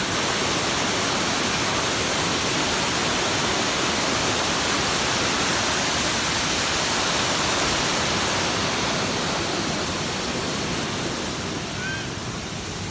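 Waterfall pouring over a rock ledge into a shallow river: a steady rushing of falling water that eases a little near the end.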